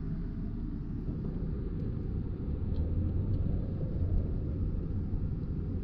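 Car driving along a street, heard from inside the cabin as a steady low rumble of engine and tyres, growing a little stronger midway.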